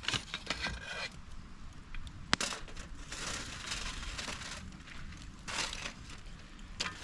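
Campfire crackling with scattered rustles and small clicks, and one sharp snap about two and a half seconds in.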